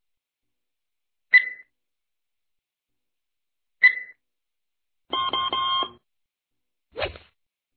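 Countdown-timer sound effects: two short beeps about two and a half seconds apart, then a brief ringing alarm a little after five seconds in as time runs out, and a single short hit about a second later.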